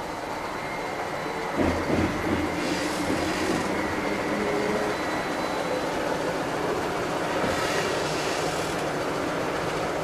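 VMZ-6215 articulated trolleybus running, heard from inside the passenger cabin: a steady rumble of the moving bus with a heavy knock about two seconds in, as over a bump, and two short stretches of high hiss later on.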